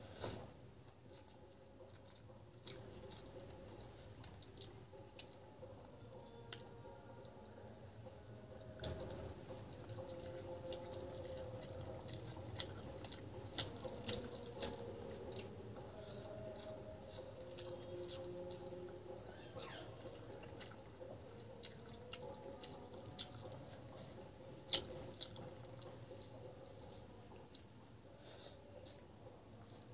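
Close-up eating sounds: wet clicks and squelches of rice and dal being mixed and squeezed by hand, with chewing and lip smacks, a few sharper clicks standing out.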